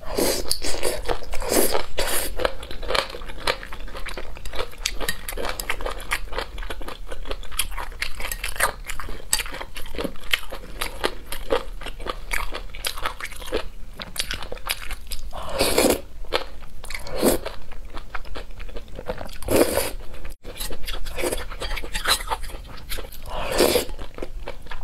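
Close-miked chewing and biting of boneless chicken feet and spicy instant noodles, with many small wet mouth clicks. A few louder noodle slurps come in the second half, one near the end.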